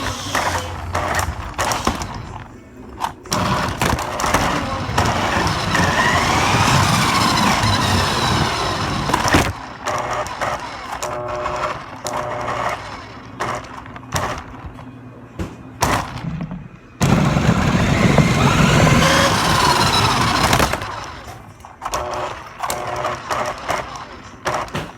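Electric RC car driven flat out: its motor whine rises and falls in two long runs, with tyre noise and sharp knocks as it hits bumps, and quieter stretches between runs.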